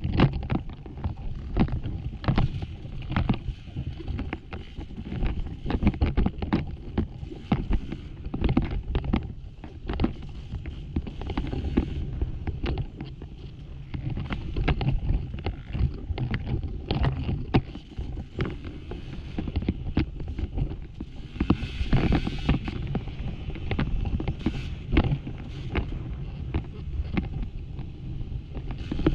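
Off-road dirt bike ridden over a loose, rocky trail: the engine runs as a steady low rumble under frequent sharp knocks and clatter from the bike over rocks.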